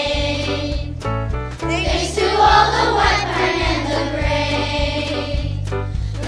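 A group of children singing a song together over instrumental accompaniment with a steady bass line.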